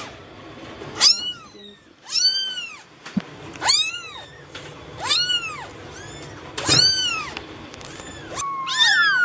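Domestic cat meowing repeatedly: about six high meows, each rising then falling in pitch, roughly one every second or so.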